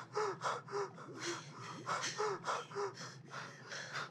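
A person's rapid, ragged gasping breaths, about three to four a second, many with a short voiced catch.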